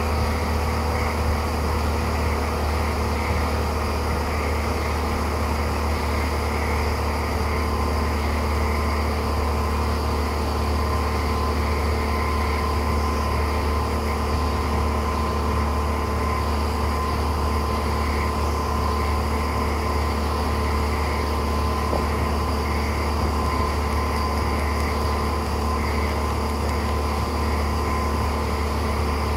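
Honda BF60 four-stroke outboard motor running steadily at speed, with the rush of the boat's wake and the wind over it.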